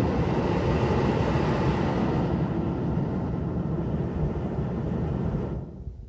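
2006–2011 Honda Civic's HVAC blower motor running at maximum speed during the climate control self-test, a steady rush of air from the dash vents. It shuts off suddenly near the end as the test finishes, with the blower working normally.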